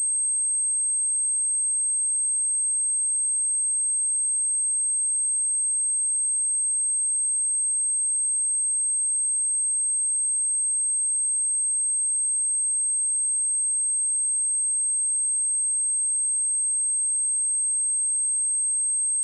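A pure 8377 Hz sine-wave test tone, a single steady high-pitched whine held at one unchanging pitch and level.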